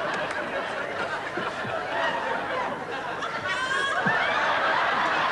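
Audience laughing, growing a little louder about four seconds in.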